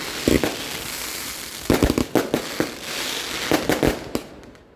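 Fireworks going off: clusters of sharp bangs with crackling between them, the loudest group about two seconds in and another near the end, dying away in the last second.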